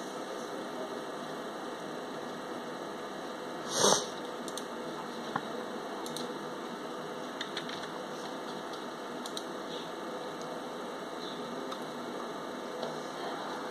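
Steady background hiss, broken by one short, loud rush of noise about four seconds in, then a sharp click and a few faint ticks.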